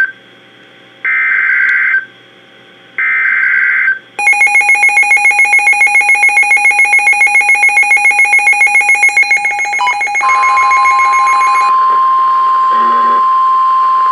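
NOAA Weather Radio emergency alert signals. First come the last two SAME header data bursts, each a buzzy digital tone about a second long. Then a rapid electronic beeping follows at about eight pulses a second, and the steady 1050 Hz warning alarm tone comes in about ten seconds in.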